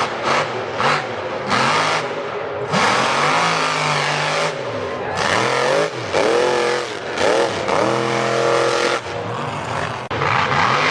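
UTV (side-by-side) engine revving hard again and again, its pitch climbing and dropping several times over a few seconds.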